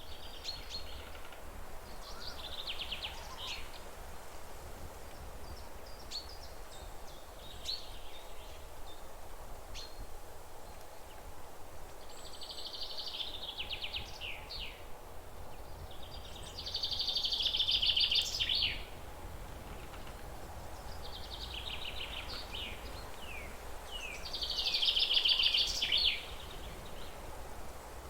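A songbird singing in short phrases of fast trilled notes, repeated every few seconds, with two louder phrases in the second half. A steady low rumble of background noise runs underneath.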